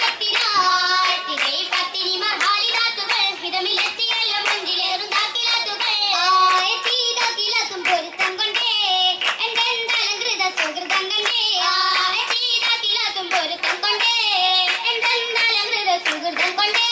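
Oppana dancers clapping their hands in a steady rhythm, about two claps a second, while female voices sing a Mappila song over the claps.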